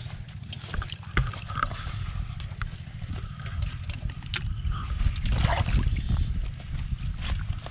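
Wet nylon net and plastic tarp being handled in shallow water, with water trickling and splashing and scattered clicks and rustles as hands pick through water-hyacinth debris. A constant low rumble runs underneath.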